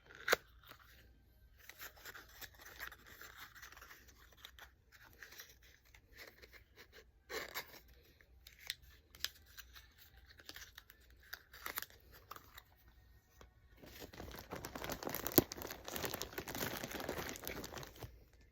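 Packaging being handled: scattered rustles, crinkles and small clicks, then a longer stretch of continuous crinkling and tearing near the end.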